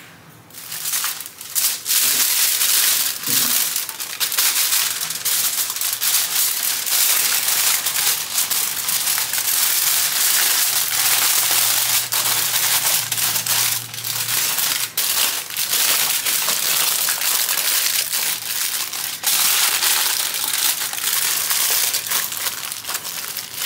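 Aluminium foil loudly crinkling and crackling as it is folded, crimped and squeezed by hand into a tight parcel.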